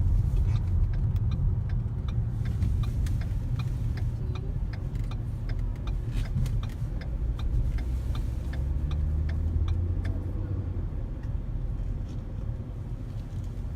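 A car driving on snowy roads, heard from inside: a steady low engine and road rumble with scattered small clicks and crunches.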